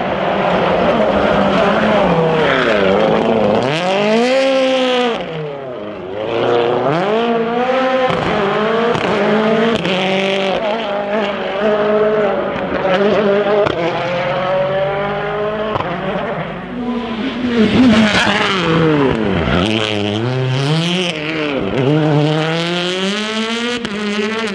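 World Rally Cars' turbocharged four-cylinder engines at full racing pace, the engine note repeatedly climbing through the revs and dropping at gear changes and braking, with several cars passing in turn.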